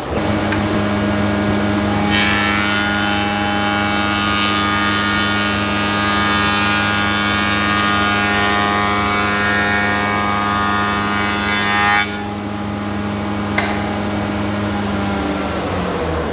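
A spindle moulder's 6mm cutter cutting a groove in an ash board fed straight through. The machine's steady hum runs throughout. From about 2 to 12 seconds in, the loud noise of the cutter in the wood sits on top of it, then stops sharply as the board clears. The moulder then runs free and fades near the end.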